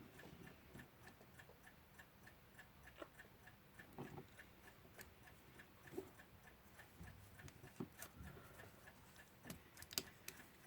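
Faint, steady ticking of a mechanical clock, with a few irregular light clicks and knocks from small metal clock parts being handled.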